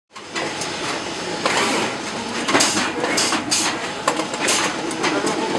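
Warehouse conveyor line running: a steady mechanical rumble and whir with irregular knocks and clatters of plastic totes and cardboard boxes moving along it.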